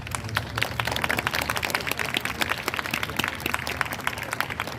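Audience applauding: many hands clapping, swelling just after the start and thinning out toward the end.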